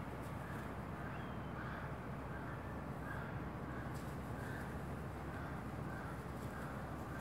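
A bird calling over and over in short notes, about one or two a second, over a steady low background rumble.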